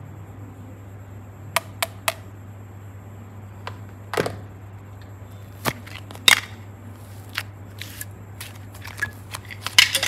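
Sharp clicks and taps of a clear plastic ice-pop mould being handled while clay is pulled out of it: single clicks every second or so, then a quick cluster of them near the end. A steady low hum runs underneath.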